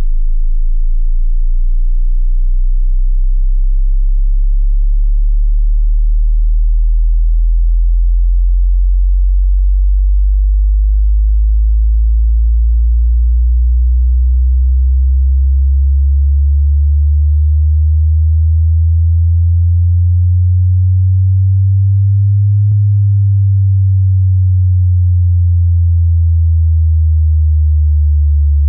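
Loud pure sine test tones in the deep bass for testing a subwoofer, stepping through different frequencies such as 27 Hz, 60 Hz and 73 Hz, the pitch shifting every few seconds.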